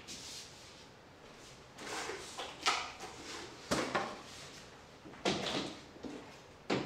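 Large stiff letter cards being picked up off the floor, slid and stood against a chalkboard ledge. Several sharp knocks and taps come among stretches of scraping and rustling.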